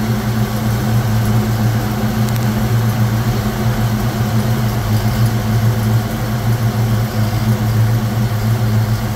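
Custom 1940s Chevrolet pickup truck's engine idling steadily, a low, even hum that does not change.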